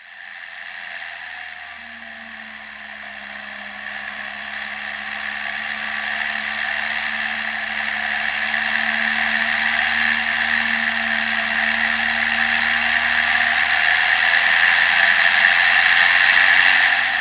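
Case CVX 1195 tractor driving along a road: steady engine drone under a strong hiss, growing steadily louder throughout and cutting off sharply at the very end.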